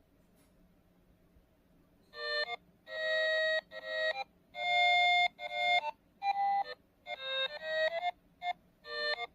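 Takara Tomy Jinsei Tokei alarm clock playing its electronic alarm tune, a melody of short synthesized notes that starts about two seconds in.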